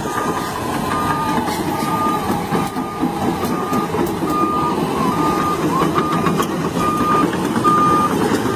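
A heavy vehicle's reversing alarm beeping at an even rate of about one beep a second, over the steady noise of its diesel engine running.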